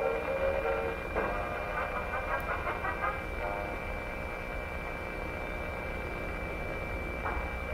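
Vintage Emerson 587 AM table radio playing a weak station through its small speaker. Thin, narrow-sounding program audio comes and goes under steady static hiss and a steady high whistle. The program mostly drops out a little after three seconds in and comes back near the end.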